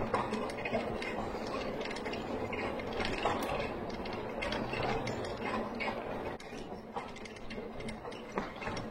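Bicycle rolling along a trail, with irregular clicking and rattling and the ticking of the rear hub's freewheel ratchet while coasting.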